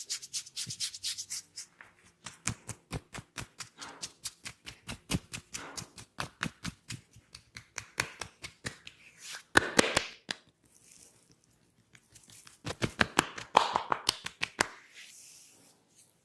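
Hands tapping and slapping on a head during a head massage: runs of sharp strikes about four or five a second, a denser flurry just before halfway, a brief pause, then another quick burst of strikes.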